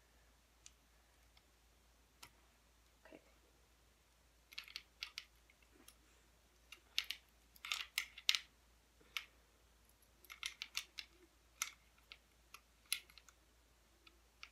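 Choke tube being screwed tight into the muzzle of a Winchester SX3 20-gauge shotgun: faint, irregular metallic clicks and ticks, coming in small bunches.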